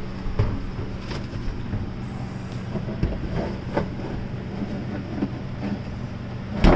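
Scattered knocks and bumps as a portable cooler/refrigerator is pushed and worked into a tight cut-out in wooden cabinetry, with one louder knock near the end, over a steady low hum.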